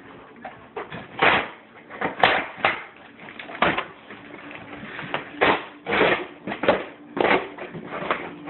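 Packaging being handled during unboxing: irregular rustling, crinkling and scraping in uneven bursts.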